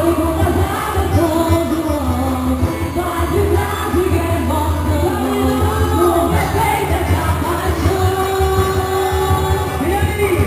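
Loud quadrilha junina music with a singer's melody over a steady bass line.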